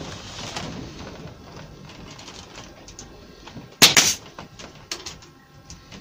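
A Bostitch pneumatic narrow-crown stapler fires once, about four seconds in: a sharp shot driving a 20 mm staple through the MDF back panel into the shelf carcass.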